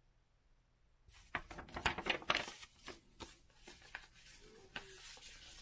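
A loose sheet of paper being folded and handled, crinkling and rustling in a run of sharp, irregular crackles that starts about a second in.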